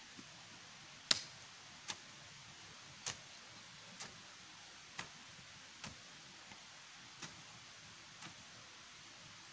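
A series of sharp knocks, about one a second, the first the loudest and the rest growing fainter, over a faint steady hiss.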